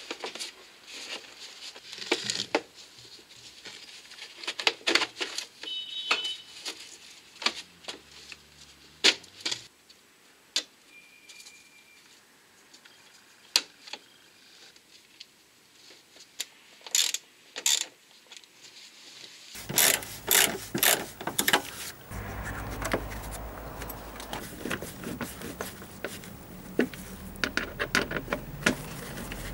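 Plastic wheel arch liner being handled and pushed into place in a car's wheel well: scattered light clicks, knocks and rubbing of plastic. About two-thirds through, a steady low background rumble comes in under the handling noise.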